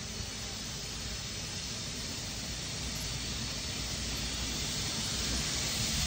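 Steady hiss with a low rumble from a new Indian Railways electric locomotive rolling along the track, slowly growing louder; no horn sounds.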